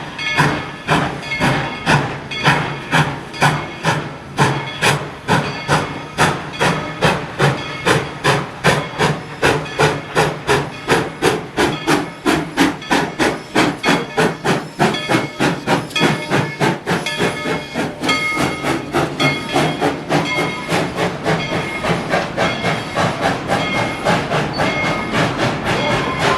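Narrow-gauge steam locomotive working under way: its exhaust chuffs beat in a steady rhythm that quickens over the first half, with hissing steam, until by the end the beats run close together.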